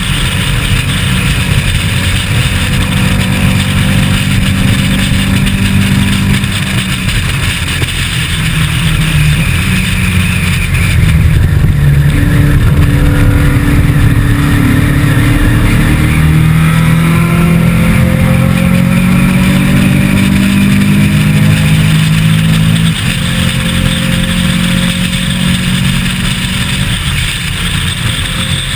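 Onboard sound of a historic saloon race car's engine at racing speed, its note rising through the revs and dropping back at gear changes and for corners, with a steady hiss of wind and road noise. The engine gets louder about eleven seconds in and stays loud.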